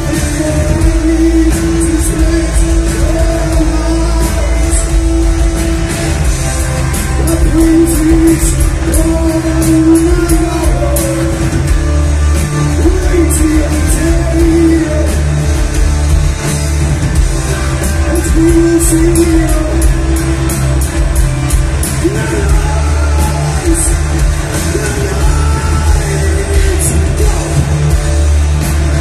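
Heavy metal band playing live and loud: distorted electric guitars, bass and drums with frequent cymbal hits, under a man's sung vocals.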